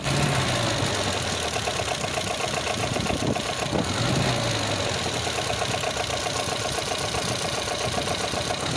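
Volvo B20 2.0-litre pushrod four-cylinder engine idling, with a fast, even ticking clatter running through it. The sound comes from a worn fiber timing gear, the wear that also makes the ignition timing bounce at idle.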